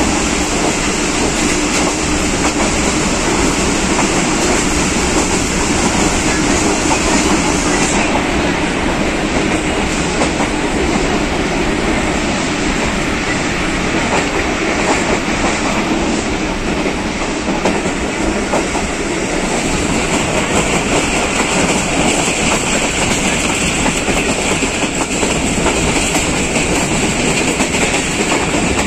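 A passenger train's coach running over the rails at speed, heard from an open window of the moving coach: a steady loud rumble of wheels on track, with clickety-clack over the rail joints.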